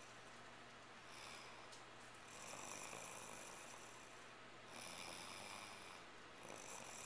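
A woman snoring faintly in her sleep: soft, breathy snores that swell and fade with each breath, about every two seconds.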